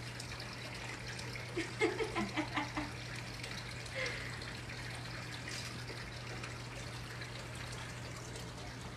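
Steady room background: a constant low hum under an even, water-like hiss. A few faint, brief voice sounds come about two seconds in.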